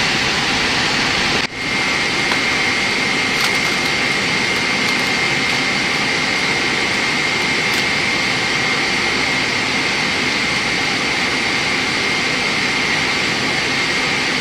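Steady running noise of a vehicle heard from inside, with a thin, steady high whine. It breaks off for a moment about a second and a half in.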